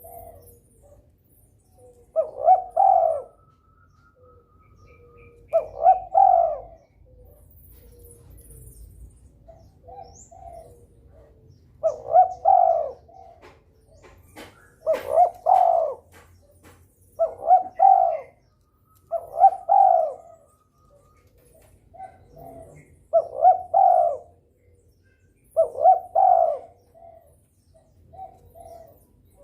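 Derkuku dove cooing over and over, a loud cooing phrase about every two to three seconds with softer short coos between. It is the steady calling of a male in breeding condition, the kind used to get other derkuku to call back.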